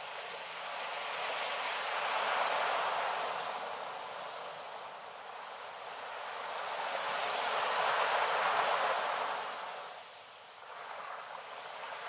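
Small waves washing up onto a sandy beach and drawing back: a hiss of surf that swells twice, about two seconds in and again about eight seconds in, dips briefly near the end, then builds again.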